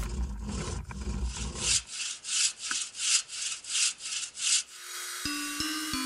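Rhythmic scraping strokes, about three a second, lasting a few seconds; near the end, music with a steady tone and plucked notes takes over.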